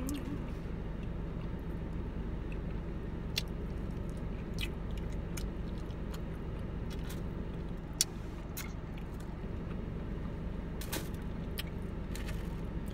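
Steady low hum inside a parked car, with scattered short clicks and crinkles of fried chicken and fries being handled and eaten by hand. The sharpest click comes about eight seconds in.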